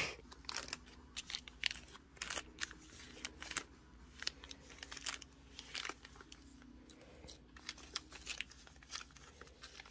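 Small zip-top plastic bags of beads crinkling and rustling as they are handled and sorted, in a series of short, soft crackles.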